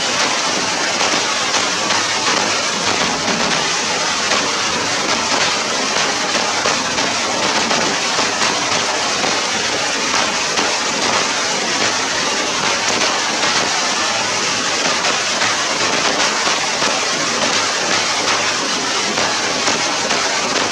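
Steady rain falling on wet ground and grass: a dense, even hiss of drops that holds unchanged throughout.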